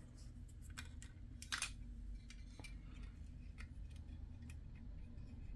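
Faint, scattered clicks and taps of small plastic model-kit parts being handled and pressed together, one slightly louder click about a second and a half in, over a low steady hum.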